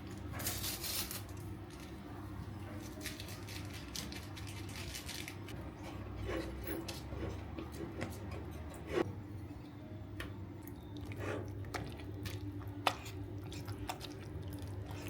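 Scattered light clicks and taps of household objects being handled, over a steady low hum, with sharper clicks about nine and thirteen seconds in.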